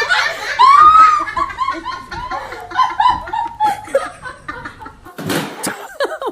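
People laughing in a run of short, pulsing laughs, with a brief noisy burst about five seconds in.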